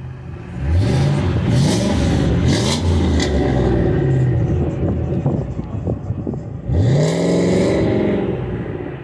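Fifth-generation Ford Mustang's engine revving as the car accelerates away. The pitch climbs sharply about half a second in and stays high for a few seconds, then rises again near seven seconds.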